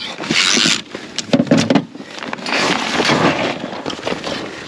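Fabric-covered inflatable pontoons and their nylon straps rustling and scraping as they are handled and strapped down, in several irregular bursts.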